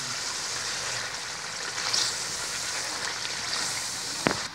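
Chicken in masala and oil sizzling steadily as it is fried on high heat in a karahi and stirred with a spatula; the oil has separated, the masala is frying down. A single sharp knock, likely the spatula against the pan, near the end.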